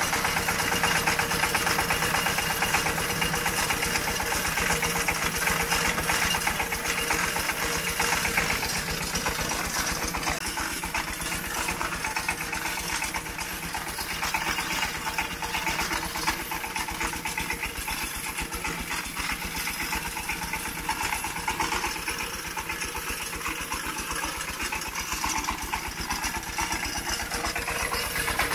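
Small engine running steadily at idle with a rapid, even firing beat.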